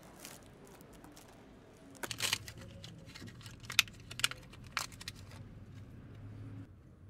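Close handling noise: a burst of rustling about two seconds in, then three sharp clicks about half a second apart, likely from opening and handling a flea-drop applicator.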